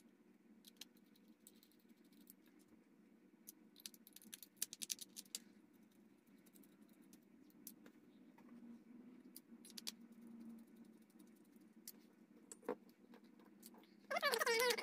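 Small clicks and taps of screws and a small screwdriver on the plastic case of a TBS Tango 2 radio controller as it is screwed back together, scattered and light, with a quick run of clicks about four seconds in, over a low steady hum. Near the end comes a brief, louder sound with a wavering pitch.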